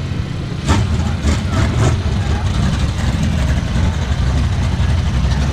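Car engine idling, steady and low-pitched, with a few short sharp sounds between about one and two seconds in.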